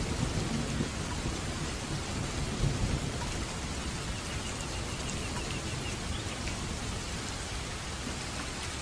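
Rain falling steadily in a thunderstorm, with a low rumble of thunder that fades away over the first few seconds.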